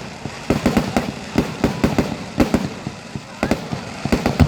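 Fireworks going off in a rapid, irregular string of bangs and crackles, thickest in the first second and a half and again near the end.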